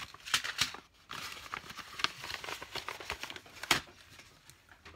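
Gift-wrapping paper rustling and crinkling as a wrapped package is handled and opened, with scattered small clicks and a single sharp tap about three and a half seconds in as a plastic blister pack is set down on a cutting mat.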